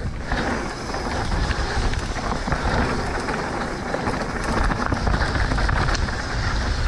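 Mountain bike riding fast down a dirt trail: tyres rolling and skittering over dirt and rocks with rattling from the bike, and heavy wind rumble on the camera microphone.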